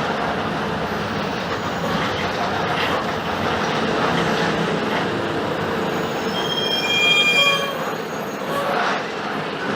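Mercedes-Benz OF-1721 BlueTec 5 bus with its four-cylinder diesel engine running, giving a steady mix of engine and rolling noise. A brief high-pitched squeal comes in about six seconds in and fades out about two seconds later.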